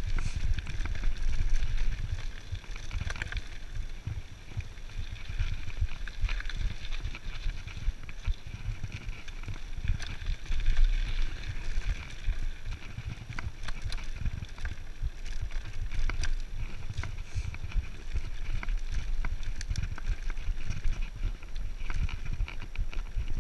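Mountain bike rolling down a gravel and rock trail: tyres crunching over stones and the bike rattling and clicking over bumps, with a steady wind rumble on the microphone.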